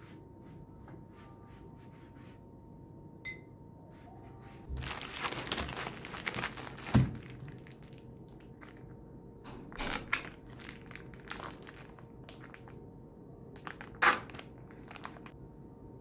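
Crinkling and rustling of packaging being handled, heaviest about five to seven seconds in. A sharp knock with a low thud comes about seven seconds in, and further clicks and knocks come around ten and fourteen seconds in.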